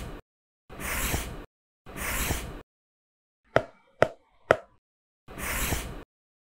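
Pen scratching across notebook paper in separate strokes of under a second each, broken by dead silence, with three sharp clicks a half-second apart about midway.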